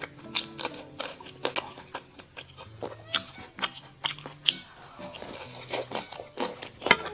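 Close-miked crunchy chewing and biting of mala xiang guo, a Sichuan spicy stir-fry, with sharp crunches coming irregularly every fraction of a second.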